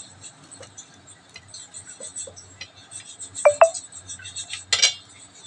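Two quick metallic clinks, with a short ring, of crab pieces knocking against a metal mixing bowl, then a brief scraping rustle. Light ticks of handling come in between.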